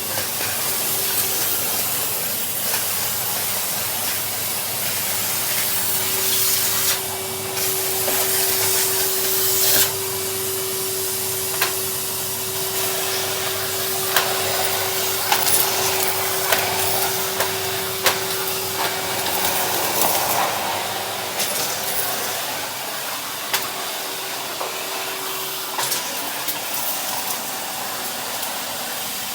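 Henry cylinder vacuum cleaner running steadily, a constant rushing hiss over a motor hum, with scattered sharp clicks as bits of debris are sucked up the hose.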